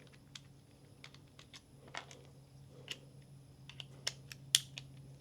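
Small scattered plastic clicks and taps as a Ninco slot car's body and chassis are handled and taken apart, with one sharper click about four and a half seconds in.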